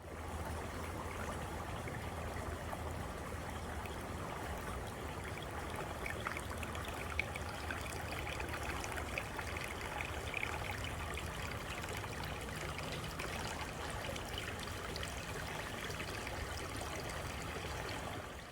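Creek water flowing: a steady rush and trickle of running water.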